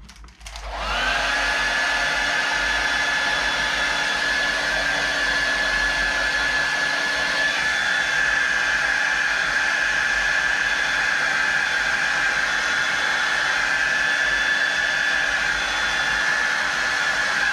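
A small electric appliance motor whirs up to speed about a second in, then runs steadily with a whine over a rush of air. It cuts off at the end.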